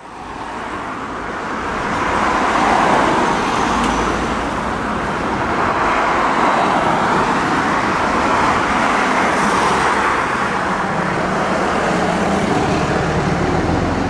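Road traffic noise: a steady wash of tyre and engine noise from passing vehicles, slowly rising and falling, with no siren. Near the end a low engine hum comes in.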